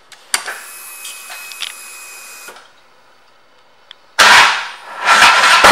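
2008 Harley-Davidson Ultra Classic being started: a click as the ignition switches on, followed by a steady faint whine for about two seconds as the fuel pump primes. About four seconds in, the starter cranks and the Twin Cam V-twin fires loudly through its Vance & Hines exhaust, dipping and then picking up again near the end.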